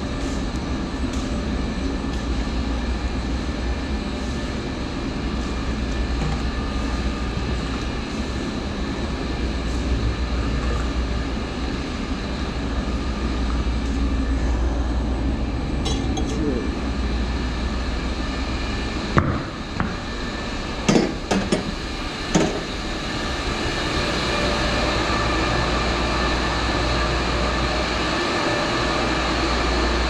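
Steady mechanical drone of boiler-room machinery with a strong low hum, and a few sharp knocks about two-thirds of the way through.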